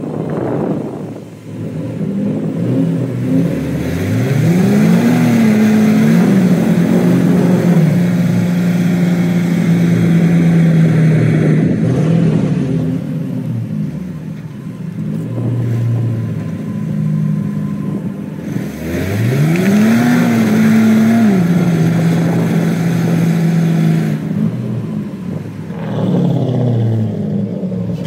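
Turbocharged Hemi V8 in a Ford F-100 pickup driving under load: the revs climb steeply twice, each time falling back and then holding steady, and drop off near the end before climbing again.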